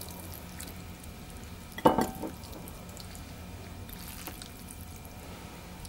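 Plastic serving utensils working through saucy noodles in a ceramic bowl and dishing them onto a plate, with one short clack about two seconds in and a few faint clicks later, over a low steady hum.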